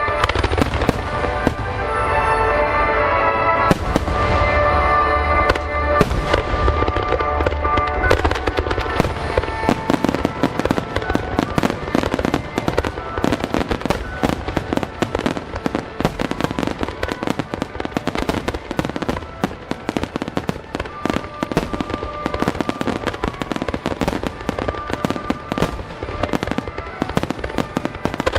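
Fireworks display: a dense, rapid run of bursts and crackling reports. Music plays along with it, plainest in the first eight seconds or so.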